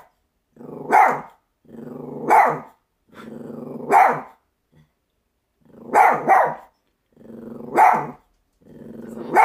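Chihuahua growling and barking in repeated rounds: each time a low growl of about half a second builds into a sharp bark, roughly every one and a half to two seconds, with two quick barks together about six seconds in.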